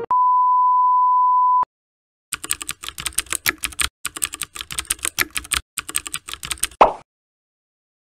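A steady 1 kHz beep lasting about a second and a half, then after a short gap a run of rapid keyboard-typing clicks, a sound effect for text being typed out, lasting about four and a half seconds. It ends with one short, loud hit just before the end.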